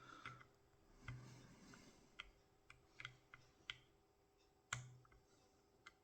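Faint, irregular small metallic clicks from picking tools working the pins of a tubular hex core lock, with one louder click about three-quarters of the way through.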